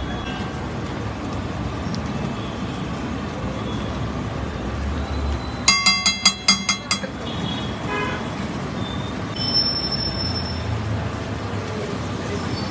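Steady street traffic noise, with a vehicle horn tooting about six quick times a little over halfway through.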